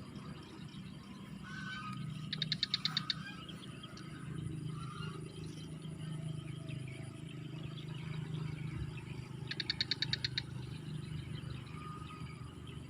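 Outdoor ambience over a steady low hum: two short animal trills of rapid pulses, about ten a second and a second each, come several seconds apart. Scattered short bird chirps sound between them.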